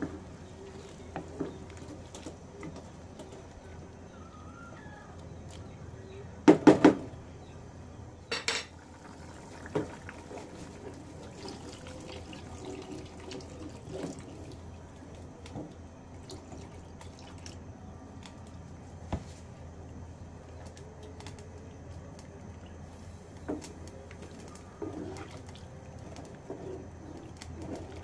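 Wooden spatula stirring beef simmering in a metal pot, scraping and knocking against the pan, with liquid sloshing and being poured into the pot. A brief loud clatter comes about seven seconds in.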